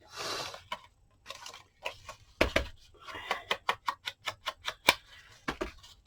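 Paper rustling briefly, then a fast run of sharp light clicks, about five a second, from crafting tools being worked on the desk.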